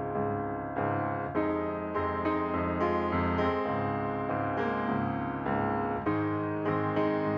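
Background piano music, with new notes and chords struck about every half second to a second.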